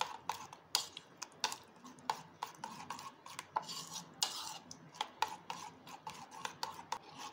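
Raw eggs and chopped vegetables being beaten in a bowl with a metal utensil, which clinks against the bowl rim and sides about two or three times a second, with wet stirring in between.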